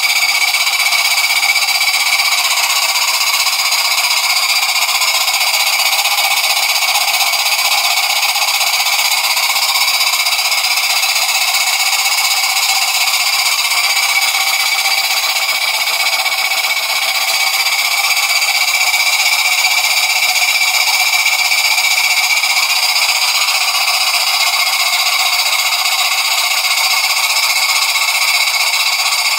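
Jensen 20G toy steam engine running, its exhaust steam making a loud, steady hiss through the Ozsteamdemon chuff pot, with no clear beat.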